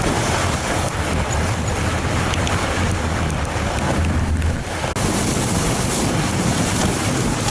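Wind rushing over a camera microphone as it moves along with a fat bike on a snow trail: a loud, steady hiss and rumble, briefly dropping out about five seconds in.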